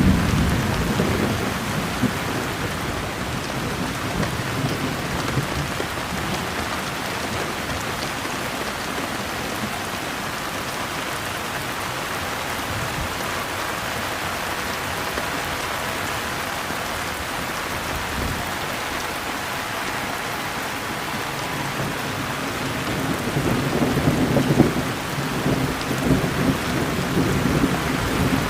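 Steady rain falling, with a low rumble of thunder at the start and again for several seconds near the end.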